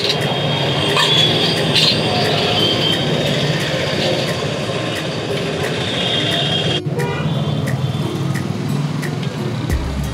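Steady street traffic noise, dense and continuous, with a brief dropout about two-thirds of the way through.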